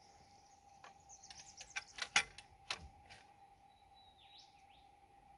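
Sharp metal clicks and knocks from the chainsaw mill's height-adjustment bracket being worked by hand, a quick cluster about one to three seconds in. A bird calls once near the end over a steady high hum.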